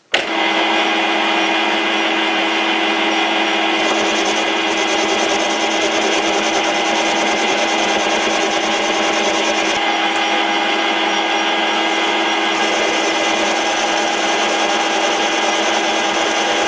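Metal lathe running under load while a carbide insert turns down the end of a steel workpiece. It makes a steady machine whine with several fixed tones over the noise of the cut.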